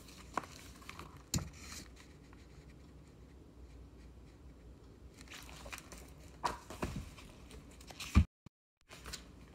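Handling noise from a hardcover picture book being moved and its pages handled: faint rustles and light knocks, with one sharper knock about eight seconds in, after which the sound cuts out for half a second.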